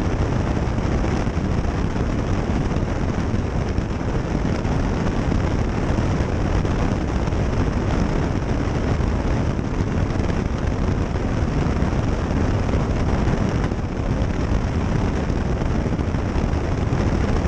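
Cockpit noise of a Cessna 152 in level cruise: the four-cylinder Lycoming engine and propeller running steadily, mixed with airflow over the airframe, a dense, even drone.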